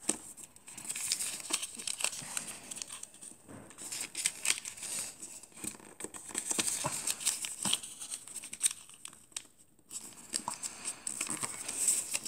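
A square of origami paper rustling and crinkling in irregular bursts as it is folded by hand, corners brought into the middle and the creases pressed flat, with a short lull near the end.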